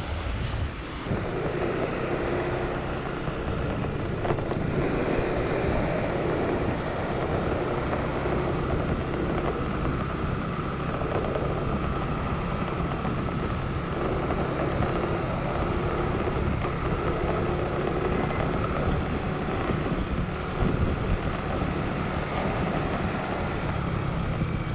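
A motor scooter's small engine running steadily as it is ridden along, starting about a second in.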